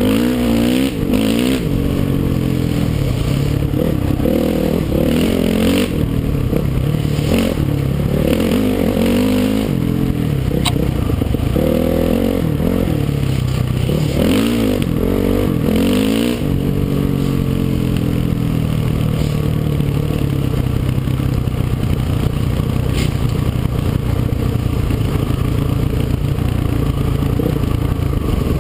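Dirt bike engine under way on a rough trail, revving up and down again and again as the rider works the throttle, then holding a steadier pitch from about halfway through.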